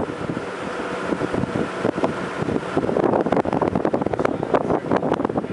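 Gusty wind buffeting the camera microphone, with rumbling and crackling knocks. The gusts grow louder about halfway through.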